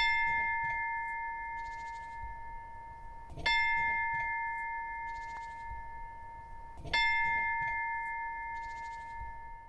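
A meditation bell is struck three times, about three and a half seconds apart, each strike ringing on in a few clear tones and fading slowly.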